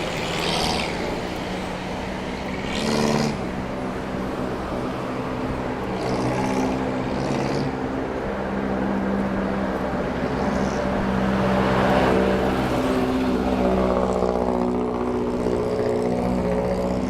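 Road traffic: motor vehicle engines running and passing close by, with a steady low rumble and engine tones that shift in pitch as vehicles speed up and slow down.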